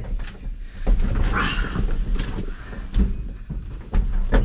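Steady low rumble inside a vehicle cab, with scattered knocks and a loud thump near the end.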